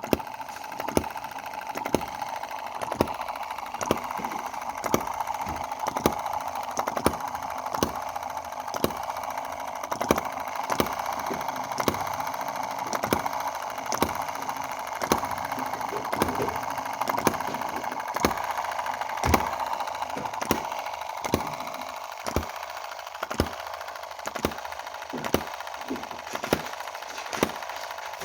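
Small Chinese EM2 model hit-and-miss gasoline engine running, firing with a sharp bang about once or twice a second over a steady higher-pitched whir. Its valve timing has been adjusted by a cog tooth, and it now fires strongly with only the occasional misfire.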